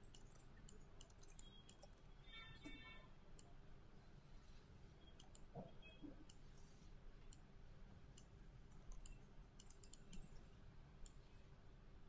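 Faint computer mouse clicks, scattered and irregular, over near silence with a low steady hum.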